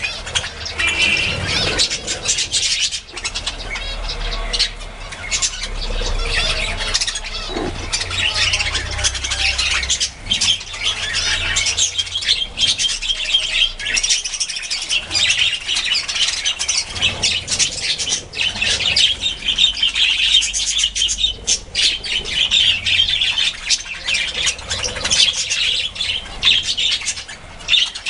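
A flock of budgerigars chattering and chirping without a break, a busy mix of warbles and squawks, with the odd flutter of wings as a bird takes off.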